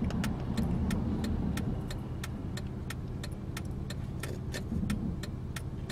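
Steady engine and road rumble inside a moving car's cabin, with a light ticking repeating about three times a second.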